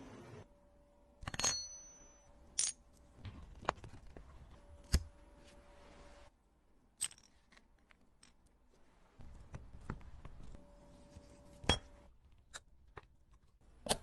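Watch-repair tools and small watch parts clicking and clinking: about ten light metallic taps and clicks, irregularly spaced.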